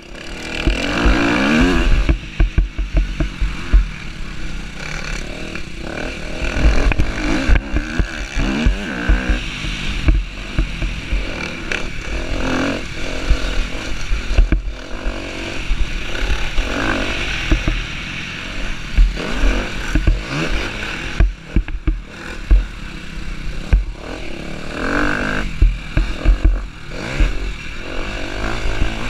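Husqvarna TC250R motocross bike engine revving up and falling back again and again at race pace, heard from on the bike, with heavy wind buffeting on the microphone.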